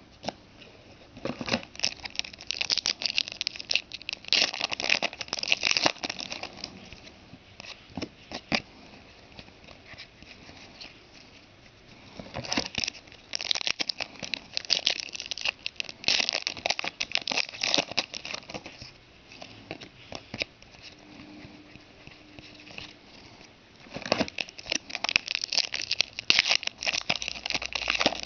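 2010 Select Prestige AFL trading-card packs being torn open and the cards handled: crinkling and rustling in three spells, with quieter stretches between.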